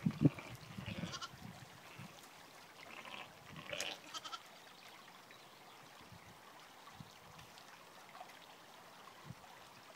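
Sheep bleating: a high call about a second in and another, louder one around four seconds in.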